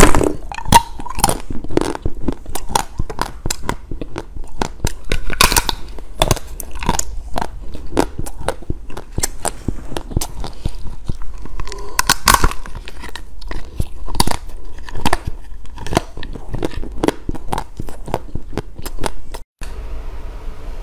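Close-miked crunching and chewing of hard chocolate shaped like a dress shoe, with sharp snaps as pieces are bitten off. The sound cuts out for an instant near the end.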